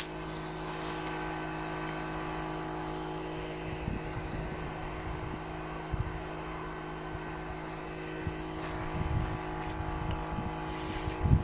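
A steady engine-like hum, with low gusts of wind buffeting the microphone now and then.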